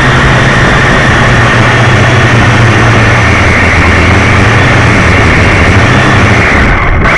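Syma X1 toy quadcopter's four small electric motors and propellers buzzing steadily in flight, loud and close as heard by the camera mounted on the craft, with a steady whine over a low hum. The whine dips briefly near the end.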